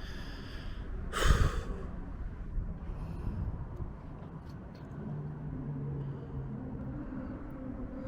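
A person breathing heavily, out of breath from climbing, with one loud exhale about a second in.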